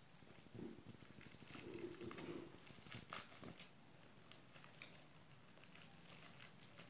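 Faint crinkling and rustling of a small paper packet being unfolded by hand, in short irregular crackles.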